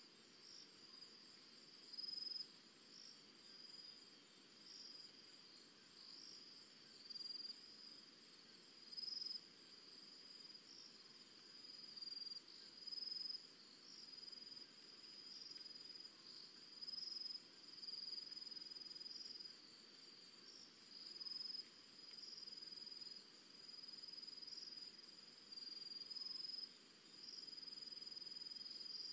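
Crickets trilling at night: a steady high-pitched trill that swells about once a second, with fainter high ticking above it.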